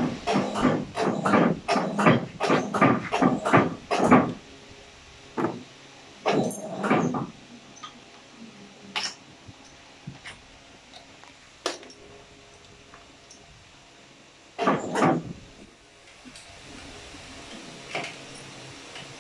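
A cleaning rag rubbed briskly back and forth over the ink rollers of a Heidelberg MO-S offset press, in quick strokes, two or three a second, for about four seconds. After that come only occasional single wipes and knocks against the rollers.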